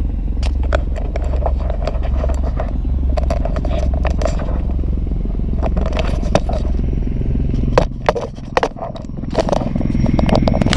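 Helicopter drone with a fine rapid rotor pulsing, dipping briefly about eight seconds in, under the knocks and scrapes of a handheld camera being moved.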